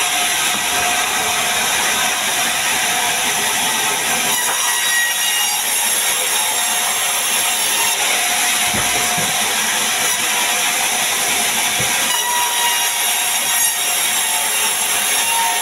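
Vertical band sawmill ripping a large log lengthwise: a steady, loud cutting noise from the blade running through the wood, with a couple of dull knocks midway.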